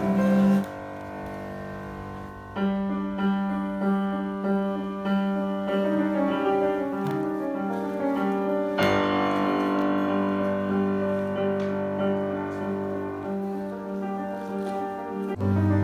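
Instrumental music led by piano, with sustained low notes underneath; it drops to a softer passage just after the start and picks up again about two and a half seconds in.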